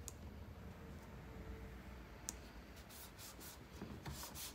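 Faint handling of a plastic Milwaukee PackOut organizer: two small clicks, then from about three seconds in a run of quick rubbing strokes of hands over its plastic lid.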